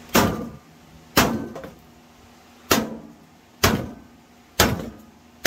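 Hammer blows on a microwave oven's sheet-metal case, six sharp strikes about a second apart, each with a brief metallic ring, knocking out security screws that can't be unscrewed.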